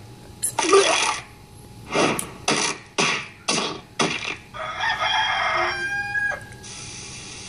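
Cartoon soundtrack played through a TV speaker: a brief yell, then a run of about five sharp hit sound effects half a second apart, then a cartoon rooster crowing.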